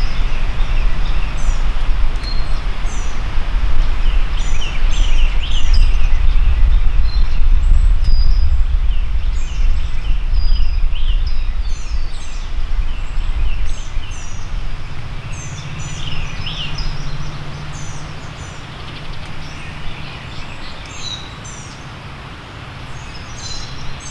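Songbirds chirping and singing in many short calls over a steady low rumble, which is loudest for the first half and then fades.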